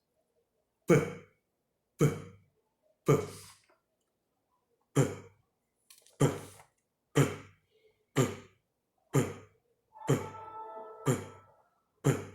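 A person repeatedly producing the P sound: short, explosive 'p' syllables about once a second, some eleven in a row, one of them drawn out a little longer near the end.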